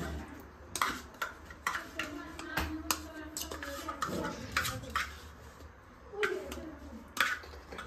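A steel spoon clicking and clinking as yogurt is scooped from a tub and knocked off onto raw chicken pieces on a steel plate. About ten light, irregular knocks.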